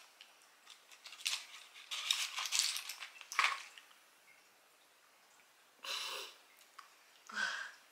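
A plastic-and-foil blister pack crackling and clicking as a tablet is pressed out of it, then two short soft sounds near the end.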